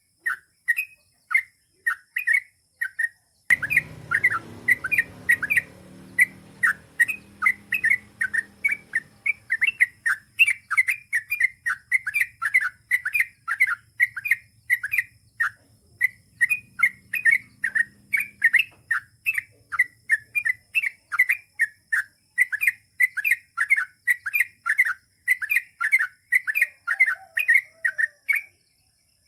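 Yellow-vented bulbul (trucukan) singing a long, rapid run of repeated chirping notes, about four a second, which stops near the end.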